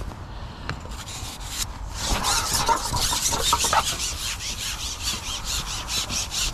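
A long match-fishing pole being pushed out hand over hand, rubbing as it slides, in a quick run of rasping strokes. A few short squeaks come about two to four seconds in.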